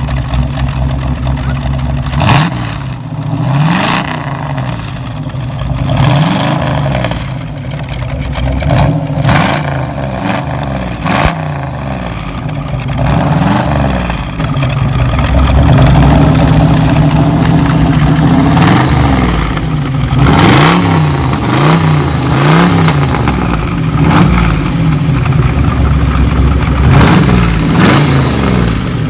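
Classic Ford Mustang Fastback's 6.4-litre big-block V8 idling with repeated quick throttle blips, the revs rising and falling again many times. From about halfway in it runs louder.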